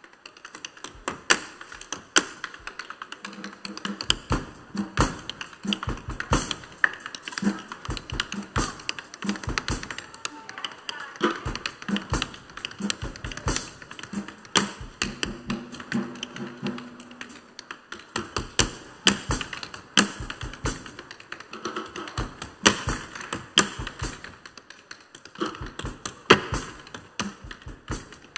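Tap shoes' metal taps striking a wooden stage in fast, shifting rhythms of sharp clicks, with accents and brief pauses. Soft notes from the accompanying band sound underneath through the middle, while the opening and closing seconds are taps alone.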